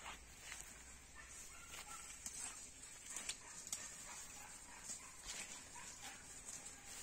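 Faint outdoor field ambience: a steady high hiss, scattered soft clicks and rustles, and a few faint, short animal calls.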